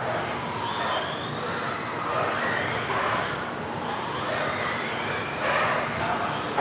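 Several electric modified-class RC off-road cars racing, their motors whining high and gliding up and down in pitch as they speed up and slow for the corners, over tyre noise.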